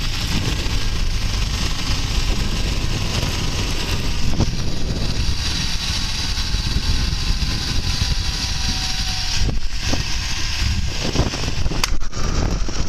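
Wind rushing over the microphone and a zipline trolley's pulleys running along the steel cable, with a faint whine that slowly falls in pitch. A few sharp knocks come near the end.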